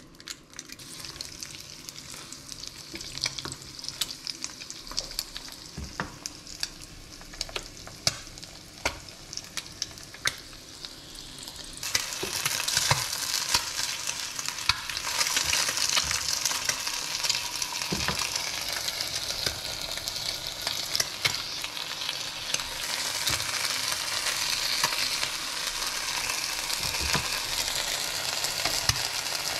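Eggs frying in oil in a nonstick pan, a steady sizzle with scattered sharp taps of a spatula against the pan. About twelve seconds in the sizzle turns louder and brighter as a slice of ham goes into the hot pan beside the eggs.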